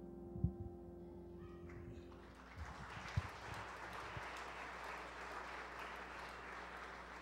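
A grand piano's last chord rings and dies away over the first two seconds, with a low thump soon after the start. The congregation then applauds steadily.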